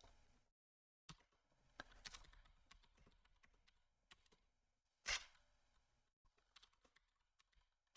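Faint typing on a computer keyboard: scattered single keystrokes with short pauses, and one louder knock about five seconds in.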